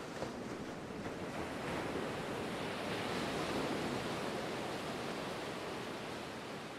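Sea surf washing, a steady rush of waves that swells about two seconds in and eases again.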